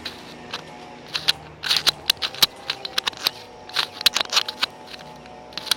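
Handling noise from a phone and a plastic clip-on lens: irregular sharp clicks and short scraping rubs as the clip and phone are moved about in the hands.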